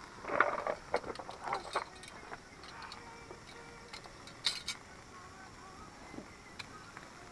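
Metal tongs clicking against a wire grill grate while meat is turned on a charcoal grill, a few sharp clicks with the loudest about four and a half seconds in. Faint voices during the first couple of seconds.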